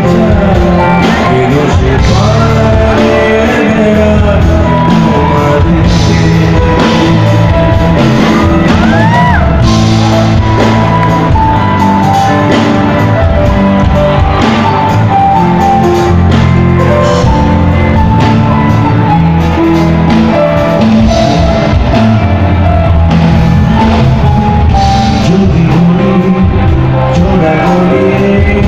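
Live band playing a song with a male lead singer: electric guitars, bass, drum kit and keyboard, loud and continuous with hall reverberation.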